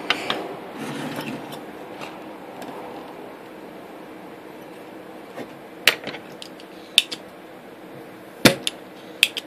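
A few sharp clicks during desoldering on a circuit board, in the second half; the loudest, near the end, is a spring-loaded desoldering pump snapping as it fires.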